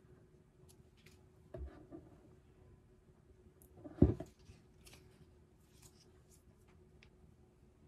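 Scissors snip once, sharp and loud, about four seconds in, cutting open a plastic sachet. Faint clicks and rustles of the sachet being handled come before and after, with a dull knock about a second and a half in.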